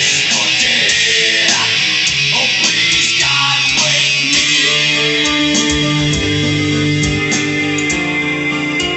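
Electric guitar played for a Kenbrown S-33A audio demo: quick picked notes, then a chord held ringing from about four seconds in.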